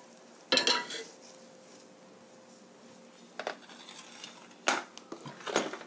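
Kitchenware clatters loudly about half a second in. After a quiet stretch, a few light clinks sound near the end as a metal spoon is handled in a small ceramic dish.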